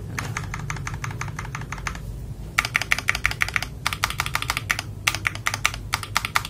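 FL Esports MK870 mechanical keyboard fitted with AKKO Silver switches being typed on fast, rapid keystroke clicks in bursts with a short pause about two seconds in. The switches are ones the typist calls crisp and warm in sound.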